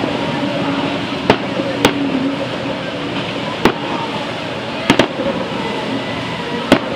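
A large fleet of motorboats running at full throttle together over rough water, a dense steady engine-and-spray noise. About six sharp bangs cut through it.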